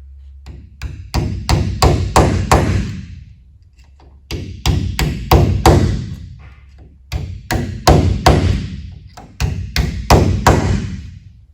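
Hammer tapping a 4 mm socket set over blind rivets, seating each rivet tight in its hole before it is pulled. Four quick runs of sharp taps, about half a dozen strikes each, with a short ringing after them.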